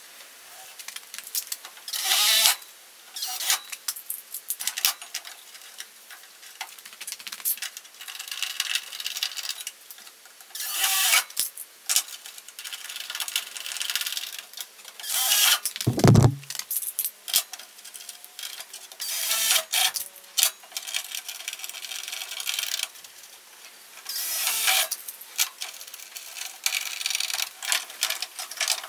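Power drill boring holes through a fibreglass wheel-arch flare and the steel wing behind it, in repeated short bursts of about a second, with one heavy knock about halfway through.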